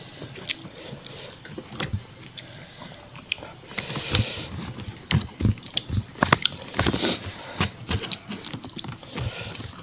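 Close-up mouth sounds of a person eating: irregular wet chewing and lip-smacking clicks, with a couple of short breathy hisses.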